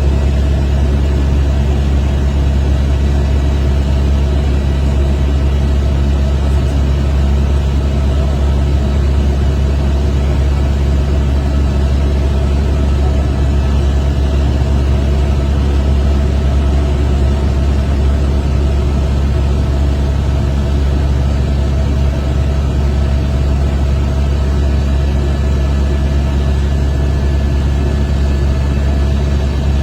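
Helicopter engine and rotor noise: a loud, steady drone that does not change.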